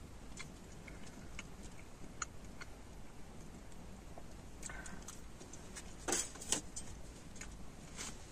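Quiet eating sounds: soft scattered ticks and mouth noises as a person chews and tears roti by hand over a steel plate, with two slightly louder clicks about six seconds in.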